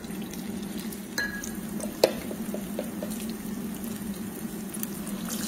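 Spoonfuls of zeppole dough frying in hot oil in a steel pan: a steady bubbling sizzle, with a few light clicks of a metal spoon against the pan about one and two seconds in.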